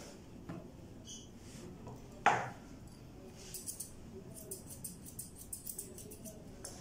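Grooming scissors snipping through a cat's fur, with a quick run of crisp snips over the second half. A single sharp knock a little after two seconds in is the loudest sound.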